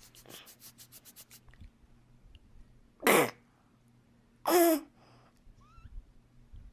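Two short, loud involuntary vocal noises from a semi-unresponsive person, one about 3 seconds in falling in pitch and a second, strained pitched one a second and a half later, the kind of weird noise made during a suspected seizure. Faint rapid clicking precedes them.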